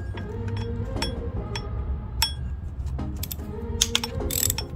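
Socket wrench on a long extension clinking and clicking against a water pump's 10 mm mounting bolts as they are loosened: a string of sharp metallic clinks, irregularly spaced, some with a brief ring.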